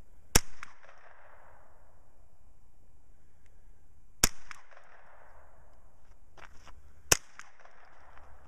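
Three single shots from a Ruger 10/22 semi-automatic .22 LR carbine, about three to four seconds apart. Each is a sharp crack with a short echo dying away after it. The rounds are Remington Thunderbolt .22 LR ammunition, which makes a slightly different sound with each shot.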